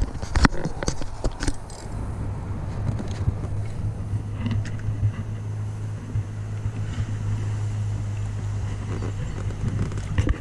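A steady low motor hum, with scattered knocks and rattles from handling fishing gear in an inflatable boat.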